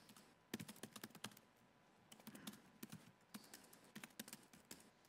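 Faint typing on a computer keyboard as a terminal command is entered: a quick run of key clicks about half a second in, then scattered single keystrokes.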